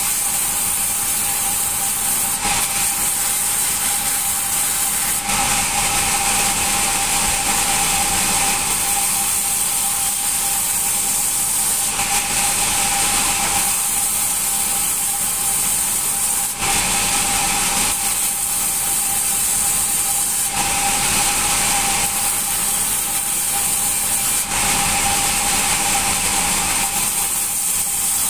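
Band sawmill running with its blade cutting through hard acacia wood: a steady tone under a high hiss that swells and eases every few seconds. The band blade has not been filed and is dull, according to the uploader.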